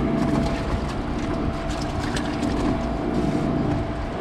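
A boat's motor running steadily, a low even hum.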